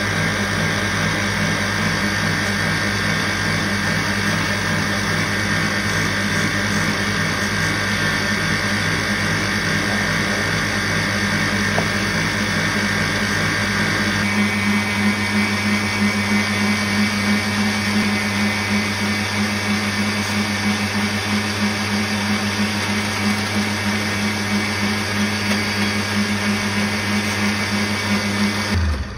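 Kenwood stand mixer motor running, its balloon whisk beating cream and mascarpone in the steel bowl. About halfway through the pitch steps up a little, and the motor cuts off near the end.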